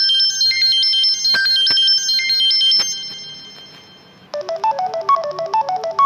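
Samsung Galaxy Grand Prime G530 ringtones playing one after another: a high chiming melody that fades out, then a lower, quicker melody of short notes that starts a little after four seconds in.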